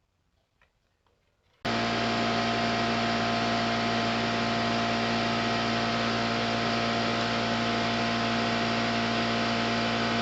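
Near silence, then about one and a half seconds in a steady machine whir, a rushing noise with a few held hum tones in it, starts abruptly and runs on unchanged at full level.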